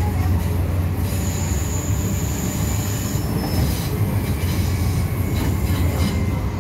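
MTR M-Train heard from inside the car while running at speed: a steady low rumble of wheels and traction. About a second in, a thin high wheel squeal rises over it for roughly two seconds.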